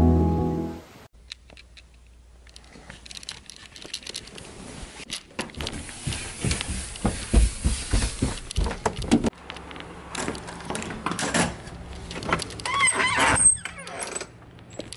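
Ambient background music fades out about a second in. Then comes footsteps going down carpeted stairs, with irregular knocks, clicks and rattles of handling. A short squeak comes near the end.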